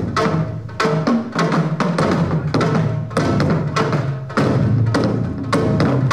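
Korean traditional drums, a large barrel drum (buk) and a janggu hourglass drum, beaten with sticks in a steady driving rhythm: sharp stick strokes about two to three a second over a low booming drum ring.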